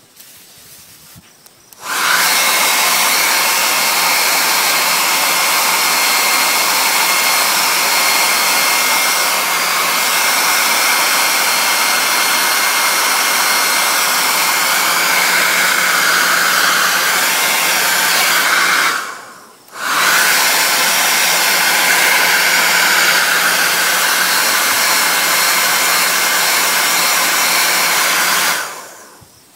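Handheld blow dryer running steadily, blowing on starch-sprayed paper sails to set them into a billowed shape. It starts about two seconds in, cuts out briefly about two thirds of the way through and comes back on, then stops shortly before the end.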